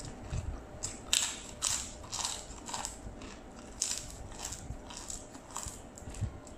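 A person chewing crunchy food close to the microphone: a run of crisp crunches, about two a second, starting about a second in.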